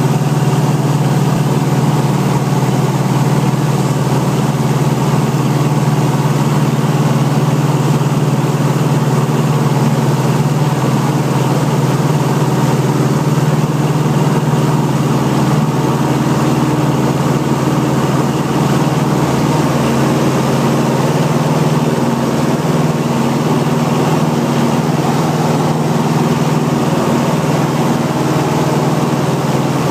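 Liberty XL-2's four-cylinder Continental IO-240 engine and propeller at full takeoff power, heard from inside the cockpit. A loud, steady drone runs through the takeoff roll and lift-off.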